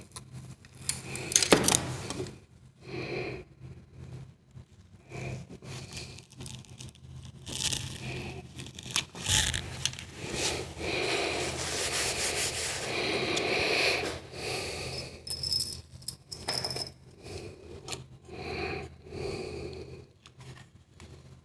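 Hands working the metal valve body and loose bolts of a ZF 6HP28 automatic transmission on a workbench: irregular clinks, scrapes and rubbing of metal parts, with a loud clatter about a second and a half in and a longer stretch of rough scraping a little past the middle.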